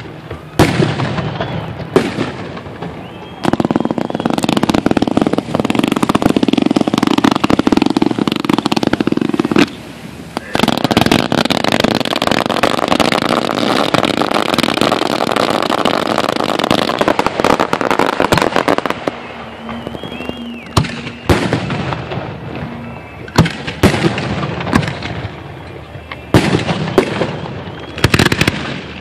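Fireworks display: aerial shells going off with sharp bangs. From about four seconds in to nearly twenty seconds they come in a dense, rapid barrage, with a short break about ten seconds in. After that they return to separate bursts a second or two apart.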